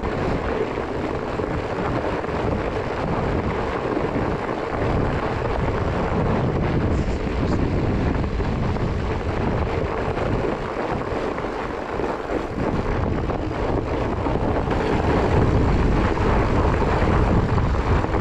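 Steady rumble of wind buffeting the action-camera microphone while riding, over the noise of the Surly Ice Cream Truck's fat tyres rolling on packed snow; a little louder near the end.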